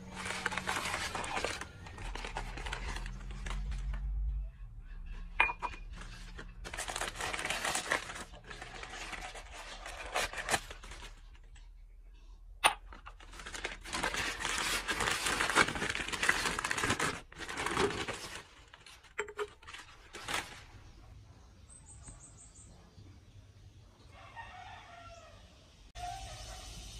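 Plastic packaging being torn open and crinkled, in several long rustling bursts with a couple of sharp clicks.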